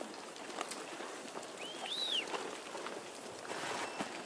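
A flock of pack sheep and goats moving over stony ground, a steady shuffle of hooves with scattered small knocks. About two seconds in, a high whistle rises and falls.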